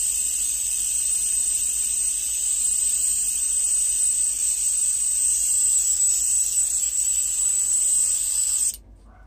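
Airbrush blowing a steady, high-pitched hiss of air, cutting off suddenly near the end.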